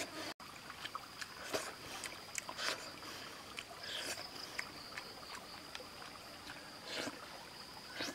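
Close-up eating sounds: irregular wet clicks, lip smacks and crunching as grilled fish is chewed and picked apart by hand, over a thin, steady high-pitched whine.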